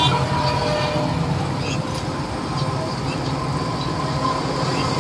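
An EMD two-stroke diesel locomotive and its train approaching from a distance, heard as a steady low engine drone and rail rumble.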